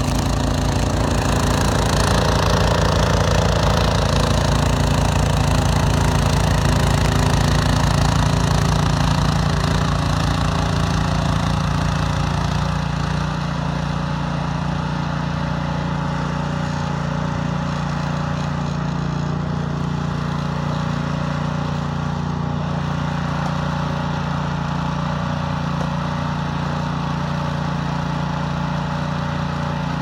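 Gas snowblower engine running steadily. It drops a little in level about halfway through, then holds steady.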